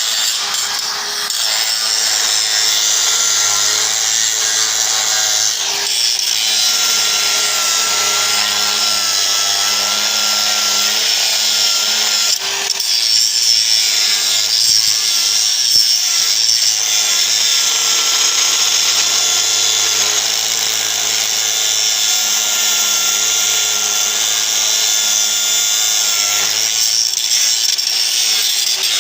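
DeWalt DCG414 FlexVolt cordless 125 mm angle grinder grinding welds under continuous load, a steady hiss with a high whine.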